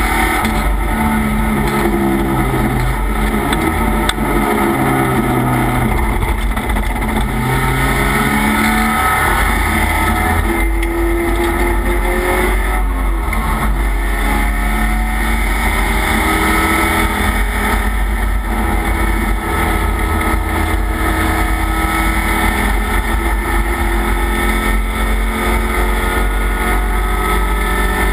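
Race car engine heard from inside the stripped, caged cabin at full racing pace, its pitch climbing and falling again and again through the gears.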